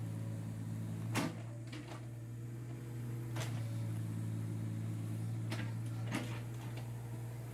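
Kubota KX41-3V mini excavator's three-cylinder diesel engine running steadily, with four sharp knocks from the working machine, the loudest about a second in.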